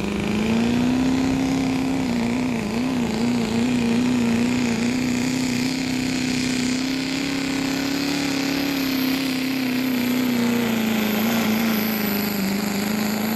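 Turbocharged pro street diesel pickup engine at full throttle, pulling a weighted sled: a loud, steady drone that wavers briefly a couple of seconds in and sags slightly in pitch near the end, with a high turbo whistle above it.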